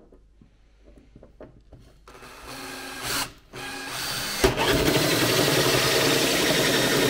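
Power drill cutting a 22 mm hole through a boot trim panel: a short run about two and a half seconds in, then the drill starts again and runs steadily through the second half.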